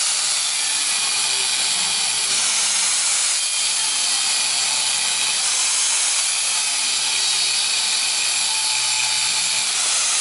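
Angle grinder with a cutting disc running steadily, cutting through a Chevette's steel coil spring: a continuous high-pitched grinding.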